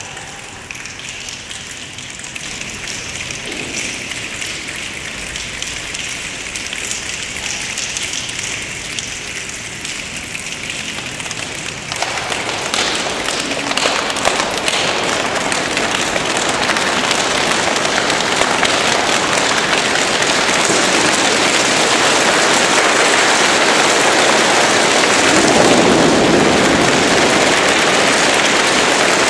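A choir makes a body-percussion rainstorm: finger snapping sounds like a light patter of rain. It thickens abruptly into a dense downpour about twelve seconds in as thigh slapping joins, and keeps growing louder and heavier toward the end.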